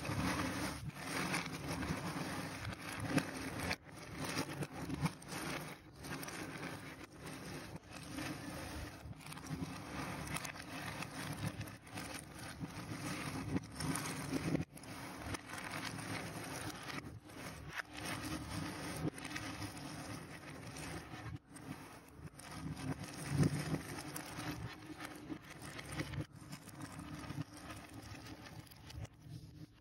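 Cardboard jigsaw puzzle pieces rattling and clicking as hands shuffle, sort and slide them across a wooden surface, a dense continuous clatter broken by several brief dropouts.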